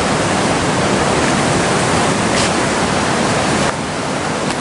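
Steady rush of river water flowing, an even noise that drops slightly in level about three-quarters of the way through.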